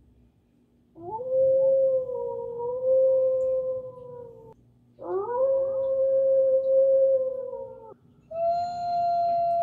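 Recorded wolf howls played through a speaker: three long howls, each rising at the start and then held steady, with short breaks between them, the third pitched higher.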